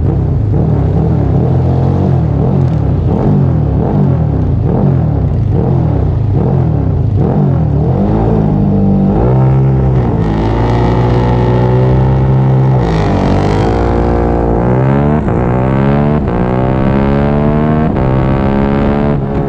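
Triumph Daytona 675R race bike's inline-three engine, revving up and down for several seconds, then accelerating hard through the gears: the pitch climbs, drops sharply at each upshift and climbs again, about four times.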